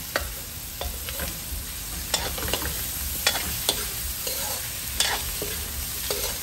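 Cassava chunks, garlic and onion sizzling in margarine in a stainless steel wok as a metal spoon stirs them, the spoon clinking and scraping against the pan at irregular moments.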